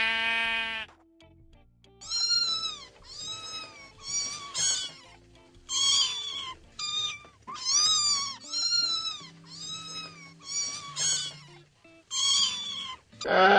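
Cat meowing over and over, a long run of short rising-and-falling meows one after another.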